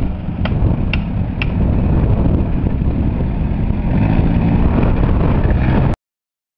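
Off-road vehicle engine running amid heavy low rumbling noise, with a few sharp clicks about twice a second in the first second and a half. The sound cuts off suddenly about six seconds in.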